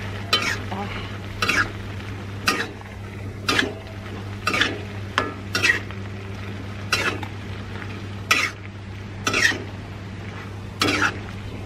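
Metal spatula stirring vegetables in an aluminium wok, scraping against the pan about once a second, over a steady low hum.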